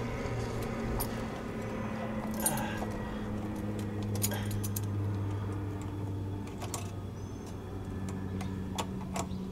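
A few scattered metal clinks and rattles as a steel hitch shank and its locking pin are handled in a truck's receiver, over a steady low hum.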